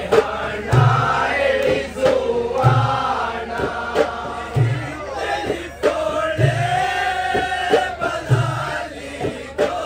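Group of men singing a langiri song together over a deep drum hit about every two seconds, with sharp clicks of the langiri sticks in between.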